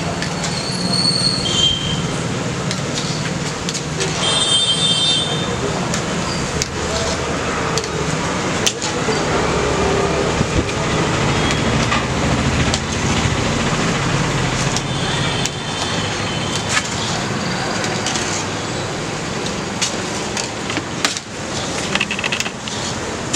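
Street traffic ambience with two short vehicle horn toots in the first five seconds, then a steady hiss and low hum as batter balls deep-fry in a kadai of hot oil.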